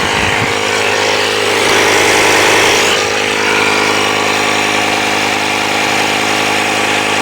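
Ryobi One+ battery-powered inflator's small compressor running steadily, with an even motor hum and a hiss of pumped air. It is close to its preset cut-off pressure.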